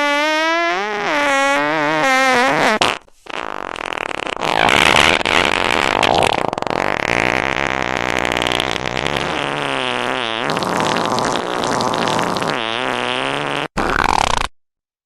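Fart sound effects played one after another. First a pitched fart whose pitch wobbles up and down for about three seconds. Then a long, noisier one lasting about ten seconds with pitch slides in it, and a short one near the end.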